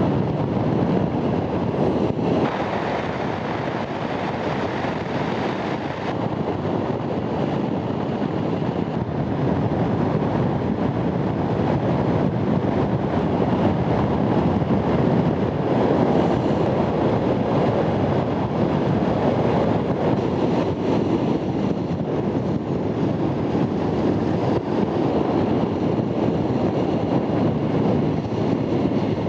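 Steady rush of wind and road noise from riding a Honda Transalp motorcycle at speed, with no clear engine note standing out.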